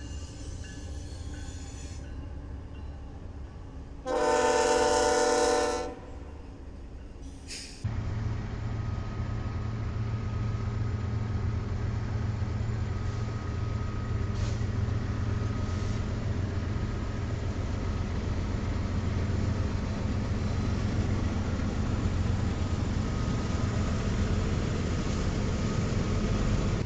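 BNSF diesel locomotive running past with a horn blast of about two seconds, several chime notes together, about four seconds in: the loudest sound. After about eight seconds, a freight train's steady low rumble as its lead locomotives and covered hopper cars roll by, with a faint thin whine above it.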